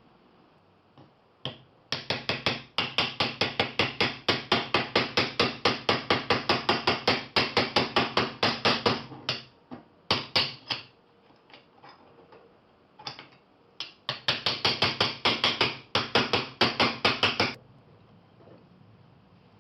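Hammer blows struck rapidly and evenly, about five a second, in two long runs with a few single strikes between them.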